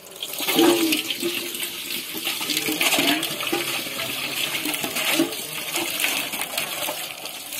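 Water sloshing and splashing in a large metal pot as a man rinses it out by hand.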